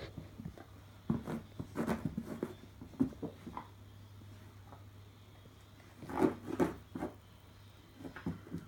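Dog chewing and mouthing at a sour sweet: wet mouth noises in short irregular bunches, one about a second in, another around six seconds and a last one near the end. A faint steady low hum runs underneath.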